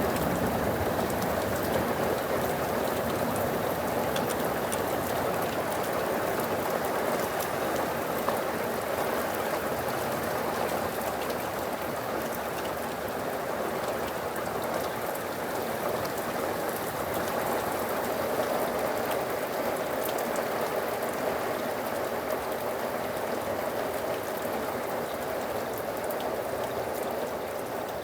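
Steady heavy rain in a thunderstorm, with many individual drops ticking. It eases a little near the end.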